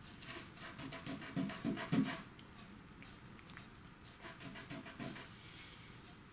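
Faint scratching and rubbing strokes from a thin paintbrush and a fingertip working brown paint into mud tracks on a model railway's painted path. A cluster of strokes comes in the first couple of seconds, loudest about two seconds in, and fainter strokes follow about four to five seconds in.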